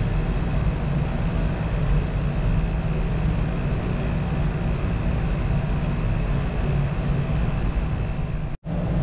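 Steady low hum and rushing noise of a running laboratory vacuum pump and fume-hood exhaust, cutting out for an instant near the end.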